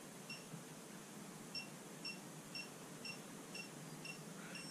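Snap-on digital angle torque wrench beeping faintly as it is turned on an engine's main cap bolts: one short beep, then a run of short beeps about two a second, changing to a held tone near the end as the set 50-degree angle is reached.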